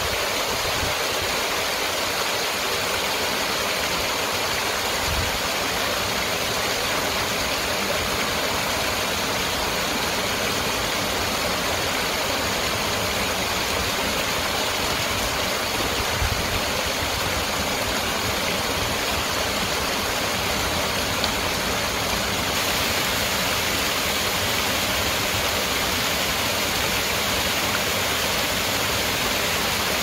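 Small stream waterfall pouring over a rock ledge into a pool: a steady rush and splash of falling water.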